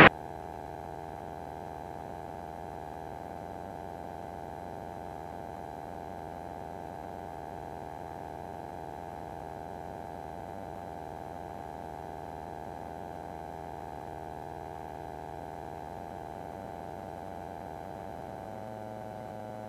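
Steady drone of a single-engine Van's RV light aircraft's engine and propeller in cruise descent, heard muted in the cockpit audio as a continuous hum with a few steady tones. Near the end the tones dip slightly lower.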